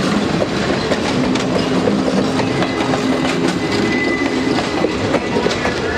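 Passenger railroad coaches rolling past at close range, their wheels clicking over the rail joints under a steady rumble. A faint high squeal comes in about halfway through.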